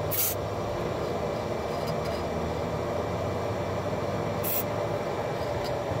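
Two short hisses of a PTFE dry-lubricant aerosol spray can, one near the start and another about four seconds later, lubricating a freshly serviced padlock. Under them runs a steady low rumble.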